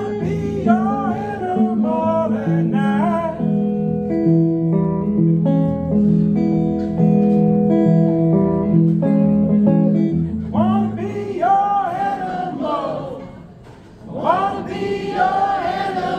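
Live music: a man singing over guitar playing held chords. The sound drops away briefly about two-thirds of the way through, then the singing comes back.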